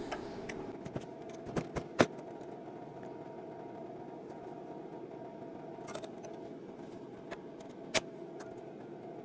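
Pliers clicking and ticking against the metal of a CAV DPA fuel injection pump's jammed transfer pump liner: a few sharp clicks, loudest about two seconds in and near the end, over a faint steady hum.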